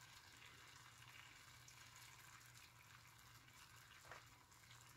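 Faint, steady sizzle of sauce simmering in a pan, with a faint low hum underneath.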